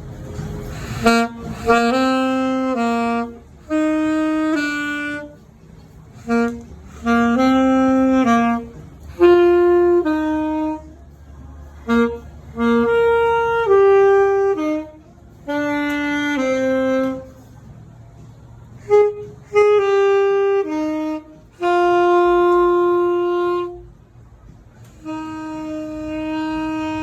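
Instrumental music: a single lead melody played in short phrases of held notes over a soft low backing.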